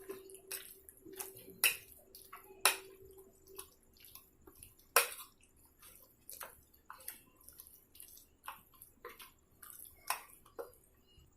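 Raw chicken pieces being mixed with a wet curd and green-masala marinade in a bowl: irregular wet squelches and sticky clicks, with a few sharper clicks standing out.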